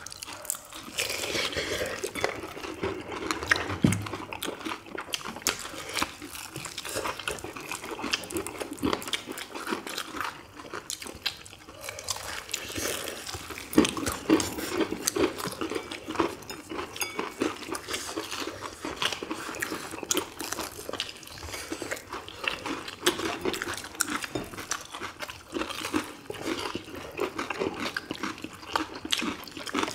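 People eating crispy fried chicken drumsticks: crunching bites into the fried coating and chewing, a dense run of irregular crackles and clicks.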